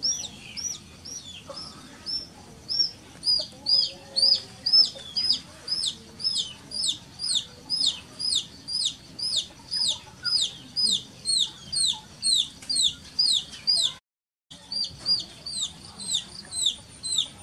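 Baby chick peeping loudly and without letup, a steady run of high, downward-sliding peeps about two to three a second: the chick's distress cry. The sound drops out for half a second about fourteen seconds in.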